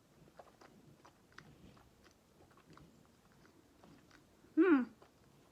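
A person chewing a bite of soft cookie with the mouth close to the microphone, small wet clicks and smacks. About four and a half seconds in comes a brief hum from the voice, rising then falling in pitch.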